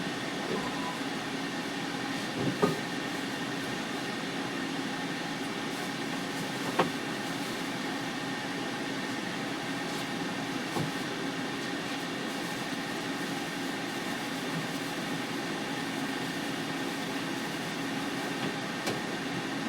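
Steady mechanical hum made of several even tones, with a few sharp clicks or knocks, the loudest about two and a half and seven seconds in.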